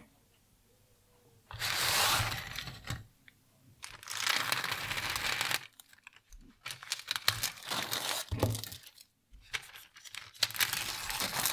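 Ready-meal packaging being torn open: two long ripping bursts, then irregular crackling crinkles as the clear plastic film lid is peeled off the plastic tray, a lid that proves stubborn to remove.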